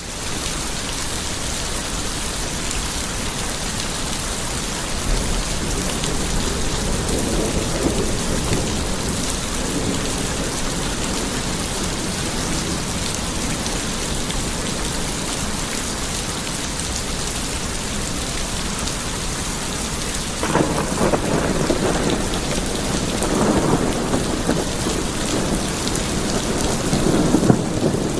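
Steady rain falling, with low rolling thunder rumbles that come in about two-thirds of the way through and recur near the end.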